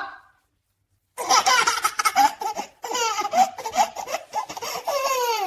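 A baby laughing in a long run of high-pitched peals, starting after about a second of silence and ending on a falling squeal.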